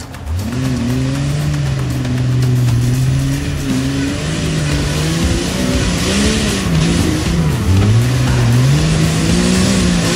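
Lifted Jeep's engine revving up and down under load as it crawls up a rocky slope. It comes in about a third of a second in, its pitch rising and falling, dropping low about eight seconds in and climbing again near the end.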